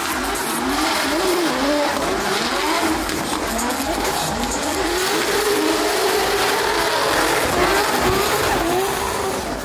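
Drift car engine revving up and down hard, with tyres squealing as the car slides.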